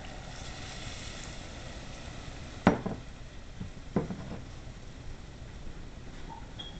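Hot pan sizzling steadily as white wine is cooked in it, with two sharp knocks of kitchenware a little over a second apart partway through, the first the louder.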